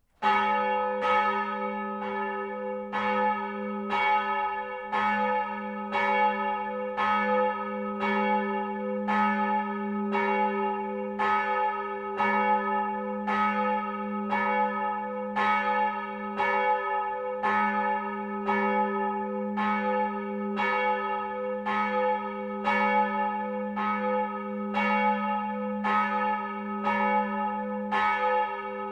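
A single swinging church bell from the Freudenstadt Stadtkirche's seven-bell peal ringing, its clapper striking evenly about once a second. It starts abruptly from quiet, and its deep hum and overtones ring on between strikes.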